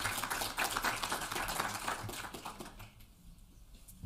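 Audience applauding, thinning out and dying away about three seconds in.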